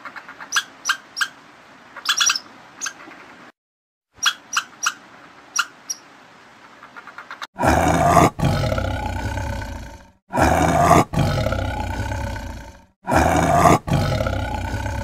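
High, sharp squeaks from ground squirrels squabbling, a few quick chirps at a time. About seven and a half seconds in, a big cat roars three times in long, loud calls, each starting with a short harsh note.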